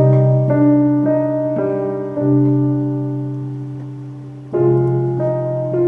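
Slow solo piano theme: low chords struck about every two seconds and left to ring and fade, with a few melody notes changing above them.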